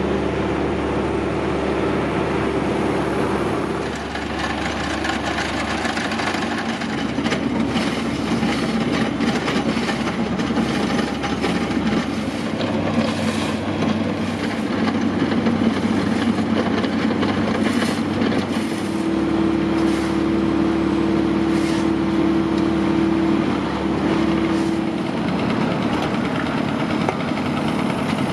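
Road-repair machinery engines running steadily during pothole patching, with the engine note shifting every few seconds and scattered knocks from the work.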